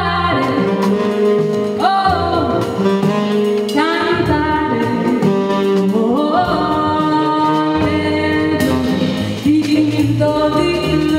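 Female singer performing live with a jazz band of keyboard, drums, double bass and saxophone, singing phrases that slide up into each note, a new phrase about every two seconds.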